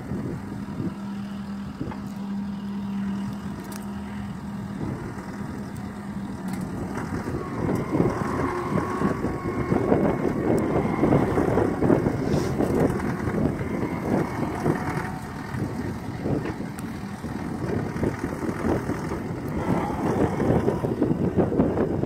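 John Deere 333E compact track loader's diesel engine running with an RSE backhoe attachment digging: a steady hum for the first several seconds, then the engine and hydraulics working harder and louder from about a third of the way in as the bucket pulls through the soil.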